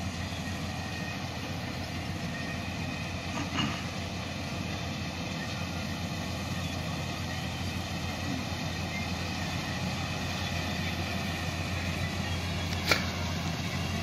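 Kartaar 4000 combine harvester running steadily as it cuts ripe rice, a continuous engine drone with a low hum. Two brief sharp clicks stand out, one about four seconds in and one near the end.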